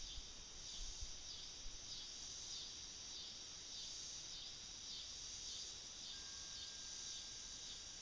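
Insects chirping in a steady outdoor chorus that pulses about twice a second, with light wind rumble on the microphone in the first second or so.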